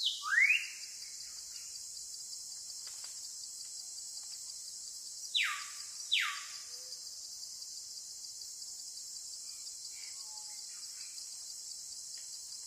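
Steady high-pitched insect chorus, with a bird calling over it: one sharp rising whistle just after the start, then two quick down-slurred whistles about five and a half seconds in.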